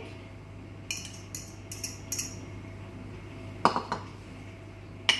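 A metal fork clinking and scraping against a stainless steel mixing bowl: a few light clinks in the first couple of seconds, a louder knock about three and a half seconds in, and a sharp ringing clink near the end.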